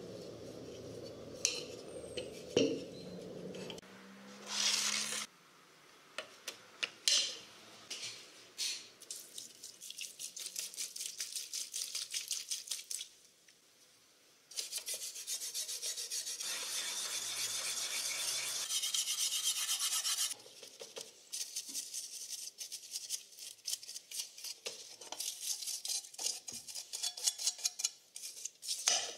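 A small wire brush scrubbing wet, rust-covered steel of an old folding shovel, in quick back-and-forth strokes that come in runs with short pauses. A few separate knocks and clicks sound in the first seconds.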